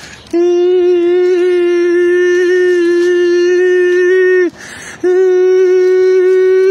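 A man's voice holding one long, steady, high nasal note like a sustained hum, loud and unwavering, breaking off briefly about four and a half seconds in for a breath before resuming at the same pitch.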